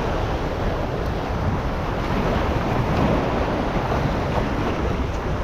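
Steady wind rushing over the microphone with the wash of the sea, an even noise with no distinct events.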